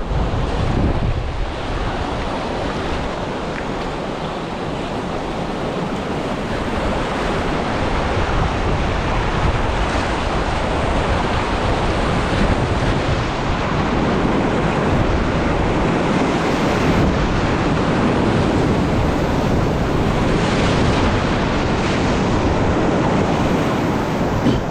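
Whitewater of a river rapid rushing steadily at a flow of about 850 cfs, with wind buffeting the microphone.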